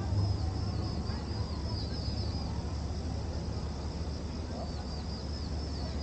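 Cicadas calling: a run of short, high-pitched chirps repeated several times a second over a faint steady buzz, with a low steady rumble underneath.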